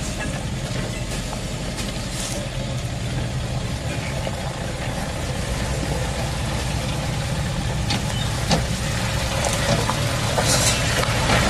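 Hino Profia's F17E V8 diesel engine running at low revs as the truck crawls through mud, growing louder as it comes closer, with a few sharp clicks near the end.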